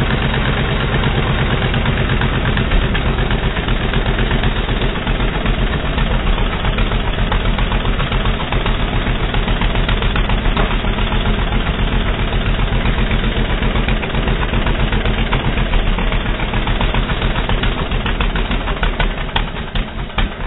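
ATV engine running with a fast, steady pulse of exhaust beats. Near the end it gets quieter and the beats become separate, slower putts, like an engine dropping to idle.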